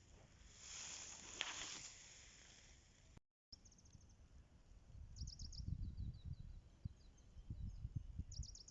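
Faint outdoor ambience: a rustling hiss early on, then a small bird giving quick runs of high chirps three times over a low rumble. A brief dropout to silence about three seconds in.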